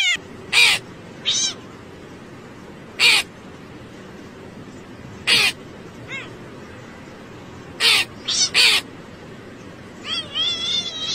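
Cats meowing in short calls, the last ones a quick run of wavering meows, with a hooded crow's harsh caws in between, over a steady background noise.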